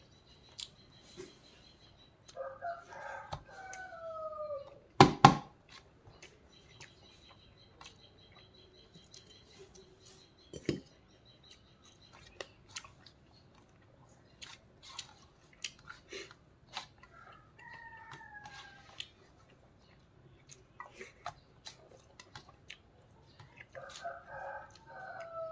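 A rooster crowing three times, each crow a falling call about two seconds long. Between the crows come small clicks and rustles of leafy greens being tossed by hand in a steel plate, with a sharp, loud double knock about five seconds in.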